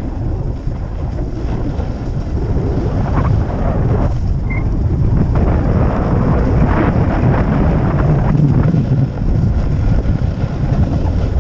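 Wind buffeting the microphone of a camera carried by a skier moving fast downhill, a loud steady low rumble. Under it, skis hiss and scrape on packed, groomed snow, with a few brief louder scrapes through the middle of the stretch.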